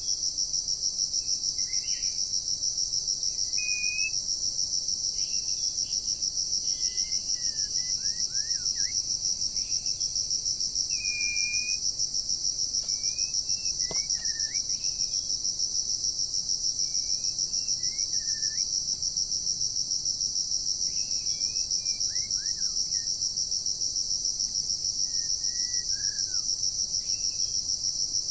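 Steady, rapidly pulsing insect chorus, with short bird chirps and whistles scattered throughout.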